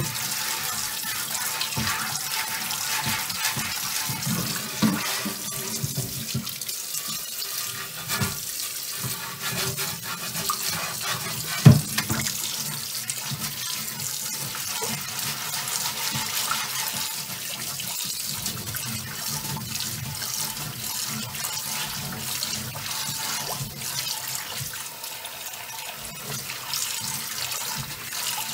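Tap water running into a cast iron oval roaster in a stainless steel sink while its baked-on coating is scrubbed off with a chain mail scrubber, with the scratchy rasp of the scrubbing under the splashing. A single sharp knock about twelve seconds in is the loudest sound.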